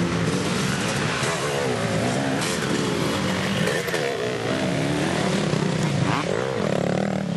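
Several off-road dirt bikes racing past one after another, their engines revving up and down in pitch as the riders work the throttle through the turns.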